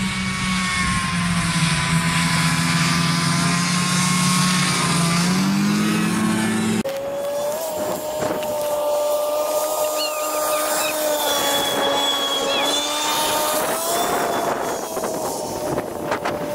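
Snowmobile engine running steadily as it tows a person in a plastic sled across the ice, its pitch wavering up and down. Before that, a lower engine drone rises in pitch and then changes abruptly about seven seconds in.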